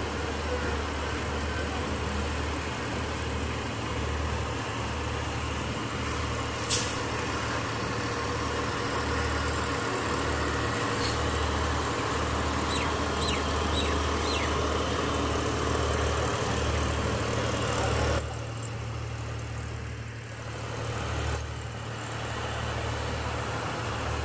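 Passenger train rolling slowly out of a station, heard from an open coach door: a steady rumble of wheels and running gear with a low pulsing hum. There is a single sharp clank about seven seconds in, and the noise thins and drops somewhat about eighteen seconds in.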